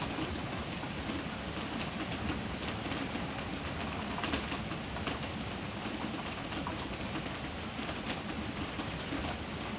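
Heavy rain falling on the roof, heard from inside: a steady wash of noise dotted with many separate drop hits.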